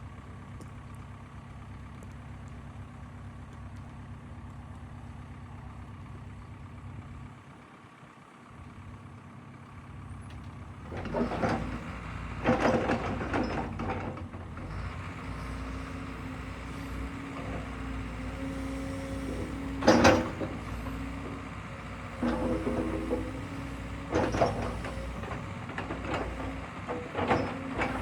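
Crawler excavator's diesel engine idling steadily, dipping briefly about eight seconds in. From about eleven seconds the machine is worked: the engine runs louder, a steady hum joins, and it clanks and knocks repeatedly, loudest around twenty seconds in.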